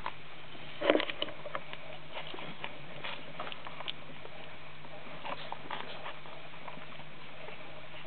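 18-day-old French bulldog puppies wrestling on a blanket: soft scuffling with many small clicks and rustles, and one louder, short puppy noise about a second in.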